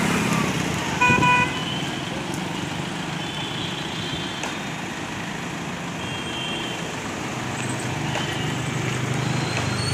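Road traffic at a busy junction: vehicle engines running past, with a short vehicle horn toot about a second in and a few fainter distant horns later. Engine rumble grows louder near the end as a vehicle passes close.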